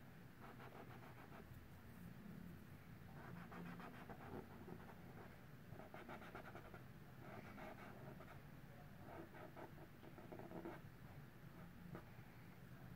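Faint scratching of a cotton swab rubbed in quick back-and-forth strokes across an oil-painted canvas, in several short spells, lifting wet paint off to pull out the highlights.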